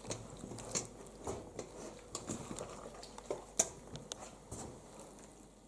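Hands picking through a bowl of small raw fish: soft wet handling with irregular light taps and clicks, the sharpest about three and a half seconds in, dying away near the end.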